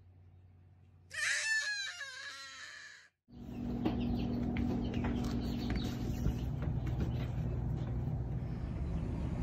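A Nigerian Dwarf goat kid bleating: one long, wavering call about a second in, lasting about two seconds. After a short silence comes a steady hum with scattered light taps and knocks.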